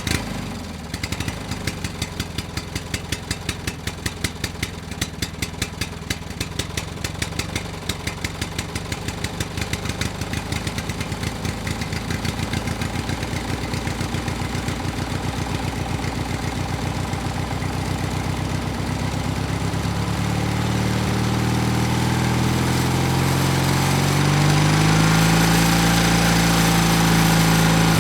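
Yamaha RX two-stroke single-cylinder motorcycle engine idling with an even, popping beat. Over the second half it is revved up gradually, the pitch climbing and holding high near the end.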